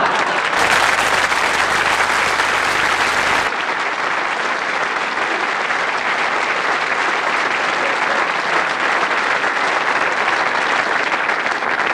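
Studio audience applauding: a long, steady round of clapping from a large seated crowd.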